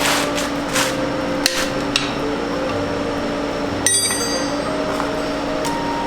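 A handful of sharp metallic knocks and clinks of hand tools on metal transmission parts during disassembly, about five strikes, the one near the end ringing briefly. Background music plays steadily underneath.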